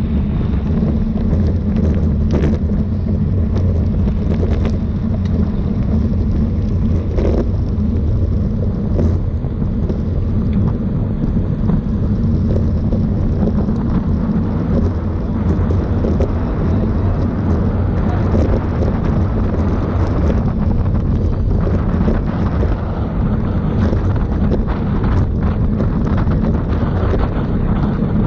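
Steady wind rush and low rumble on a camera microphone riding along on a bicycle in a road race, with a few faint clicks.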